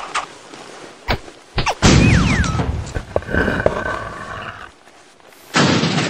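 Sound effects laid over the cuts: a few sharp clicks and thuds, then a loud whoosh with a falling tone about two seconds in, a held tone after it, and another loud burst near the end.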